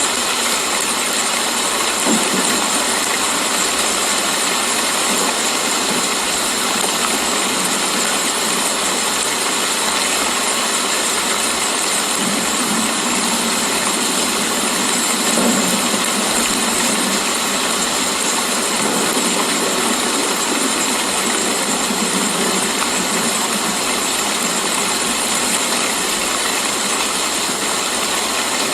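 Steady rain, an even hiss without breaks.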